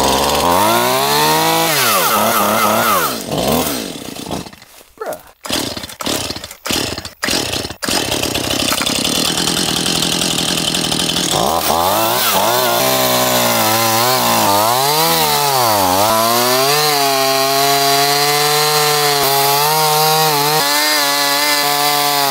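Two-stroke Stihl chainsaw revving and cutting through a thick fallen tree trunk, its engine pitch rising and falling as the chain bogs in the wood, with several abrupt drop-outs between about 4 and 8 seconds in, then settling into a steady high run near the end. The saw cuts slowly, which the user puts down to a dull chain that needs sharpening.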